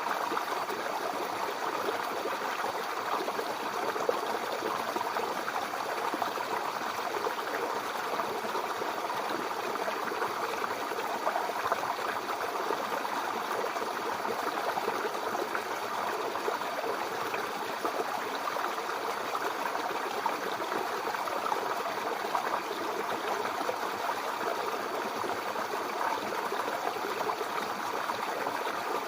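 Shallow brook babbling and gurgling over stones, a steady, even rush of flowing water with a bubbling texture.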